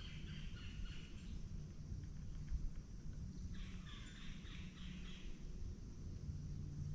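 Two buzzy, rasping animal calls, each about a second and a half long: one at the start and one about three and a half seconds in. Under them runs a low steady hum.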